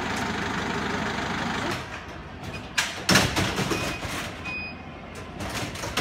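A vehicle engine idling steadily, which stops about two seconds in; then a run of loud metal clatters and knocks from a stretcher being handled at an ambulance's open rear doors, with two brief high beeps.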